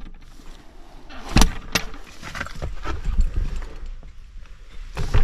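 A wooden plank door being shut and fastened with a metal pin: a sharp knock about a second and a half in, a second knock just after, small metallic clicks and scrapes, then another louder knock near the end.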